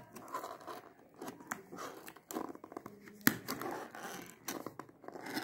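Ballpoint pen tip scraping and slitting the tape on a cardboard box, with irregular scratching, crackling and clicks of cardboard, and one sharp click about three seconds in.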